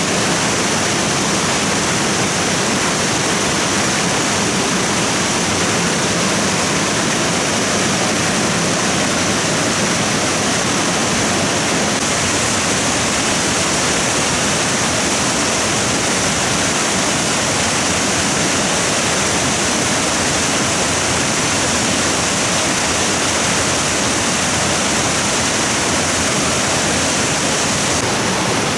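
Stream water rushing, a loud, steady, unbroken rush.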